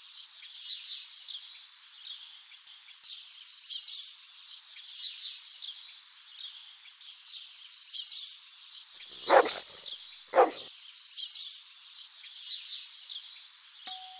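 Songbirds chirping steadily over light outdoor ambience. About nine and ten seconds in come two loud short sounds. Near the end a doorbell button clicks and the first note of a doorbell chime starts to ring.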